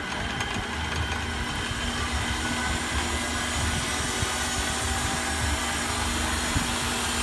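Treadmill DC motor driving an old Buffalo drill press through a link belt, running steadily with a low hum at a higher speed, its speed potentiometer just turned up. It grows slightly louder over the first few seconds.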